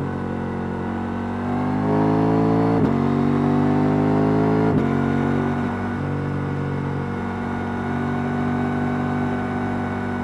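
KTM 890 Duke R's stock parallel-twin engine pulling hard with a rising note. It is cut twice by quick upshifts about two seconds apart, then holds a steady cruising note.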